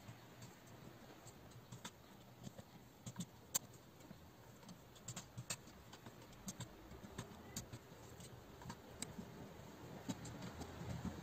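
Faint, irregular small clicks and taps of a plastic RC servo being handled and pressed into place against the aluminium chassis of an RC buggy.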